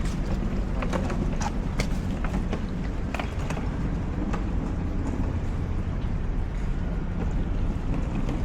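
Steady low rumble of a passenger ferry's engines under way, with scattered light clicks and knocks in the first few seconds.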